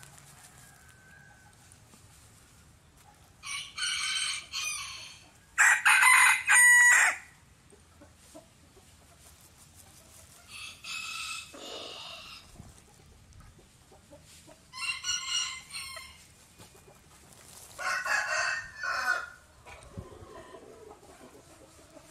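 A chicken calling in five loud bursts a few seconds apart, each a short run of high, shrill calls; the second burst is the loudest.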